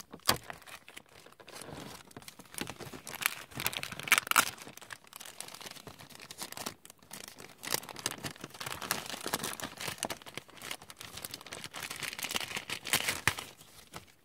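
Clear plastic bag crinkling irregularly as it is torn open and handled, with its paper instruction sheet pulled out. The crackles are loudest about four seconds in and again near the end.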